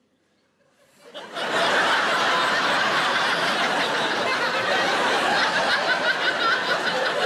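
Large audience laughing, swelling up quickly about a second in and then holding loud and continuous.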